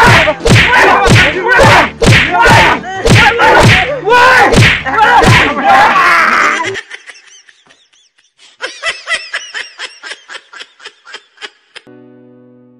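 A person laughing loudly in repeated bursts, breaking off about six seconds in. Fainter, quicker laughter follows. A held keyboard chord comes in near the end.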